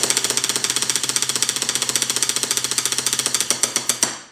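Drum roll played with two wooden sticks on an aluminium injection mold: a fast, even roll of sharp taps on the metal plate, ending with a final stroke about four seconds in.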